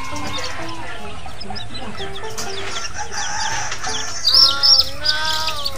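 Chicks peeping continuously, short falling high notes, over background music, with a louder, longer bird call about four and a half seconds in.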